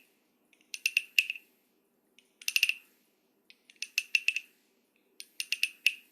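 A toy frog croaking: short bursts of rapid, ratchety clicks, four of them about a second and a half apart.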